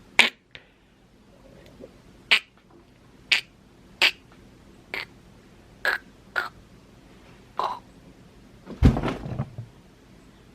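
A man's voice acting out choking: short, sharp gagging gasps and coughs about every second, ending in a longer, louder, rougher burst nearer the end.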